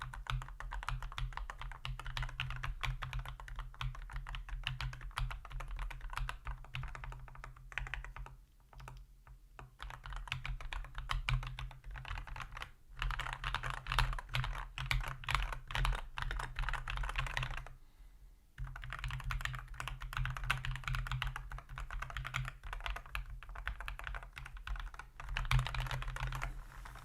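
Typing on a MonsGeek MG108B mechanical keyboard with lubed Akko Cream Yellow V3 Pro linear switches: quick runs of keystroke clacks, with short breaks about eight seconds in and again near eighteen seconds.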